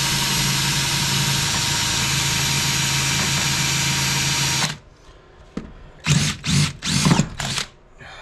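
Cordless drill running steadily at speed, drilling out the head of a seized screw on a carburetor throttle shaft; it stops suddenly about two thirds of the way through. Four short, loud noises follow a little over a second later.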